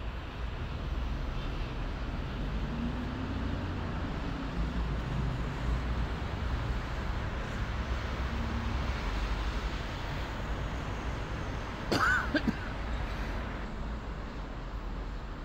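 City road traffic: a steady low rumble of cars and buses passing. About twelve seconds in, a short, sharp higher-pitched sound stands out briefly as the loudest moment.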